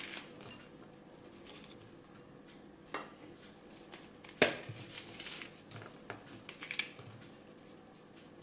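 Scattered light clinks and knocks of kitchen bowls and utensils, with one sharp knock about four and a half seconds in and a smaller one a little before it.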